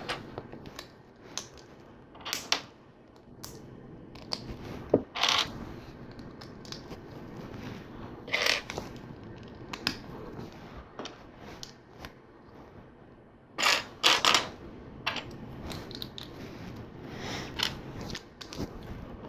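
Plastic LEGO bricks and plates clicking and knocking as they are picked up, handled and pressed together, in irregular short clicks with a few louder snaps.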